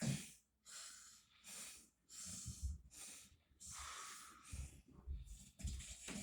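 A man snoring in his sleep: a run of about eight rough, uneven breaths, some with a low throaty rattle.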